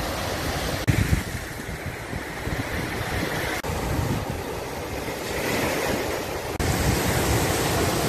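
Small waves washing up onto a sandy beach in a steady wash of surf, with wind buffeting the microphone in low rumbling gusts.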